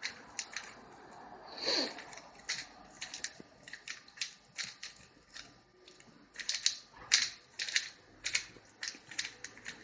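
Rubik's cube being turned quickly by hand, its layers clicking and rattling in irregular clusters of sharp snaps. A brief squeak that falls in pitch comes about two seconds in.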